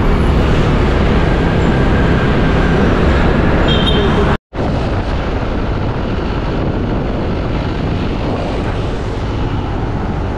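Steady rushing noise of a motorcycle under way, with engine, tyre and wind noise blended together. It drops out abruptly for a split second about four and a half seconds in.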